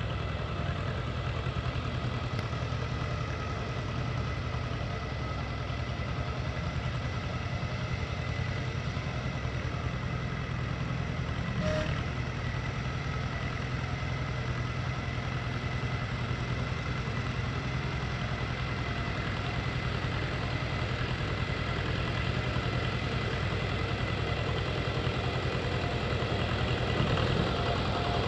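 Old loader-backhoe tractor's engine idling steadily, getting a little louder near the end as the tractor pulls forward.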